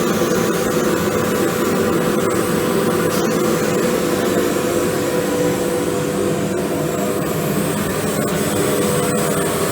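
XTLASER F1530H 3 kW fiber laser cutting machine running as it cuts: a loud, steady rush of noise with a held hum, and a few faint clicks.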